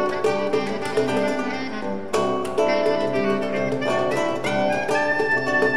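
Live improvised trio music of guitar, bass clarinet and hand percussion. Quick plucked guitar notes and sharp strikes sound over held tones.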